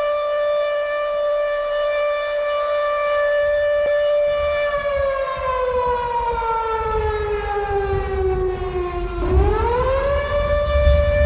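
Civil-defence siren sounding as an earthquake drill alarm: a steady wailing tone that, about four seconds in, slowly falls in pitch for about five seconds, then quickly rises back to its steady pitch. A low rumble runs under it near the end.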